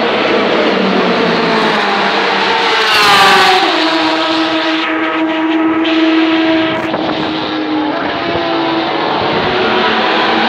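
Several endurance racing cars' engines running at speed. One car passes close about three seconds in, its engine note rising and then dropping as it goes by, and others run underneath at steadier revs.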